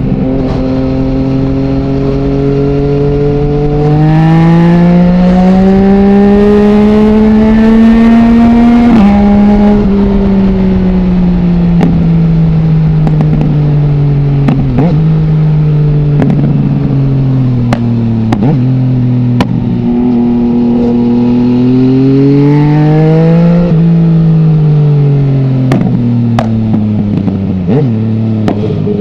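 Yamaha MT-09's three-cylinder engine through an Akrapovic full-system exhaust with no dB killer, running steadily and then accelerating hard for about five seconds before a sudden drop in revs at a gear change. It then slows over several seconds with a series of sharp cracks on the overrun, pulls again briefly, and eases off once more near the end.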